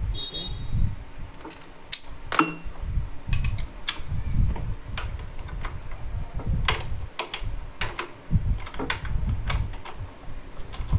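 Irregular sharp metal clicks and clinks of a wrench at work tightening a 17 mm bolt on a motorcycle engine, with dull low knocks of handling beneath.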